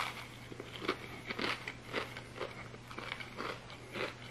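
A person biting into and chewing deep-fried seitan vegan fried chicken: the crispy breading crunches in the mouth about twice a second.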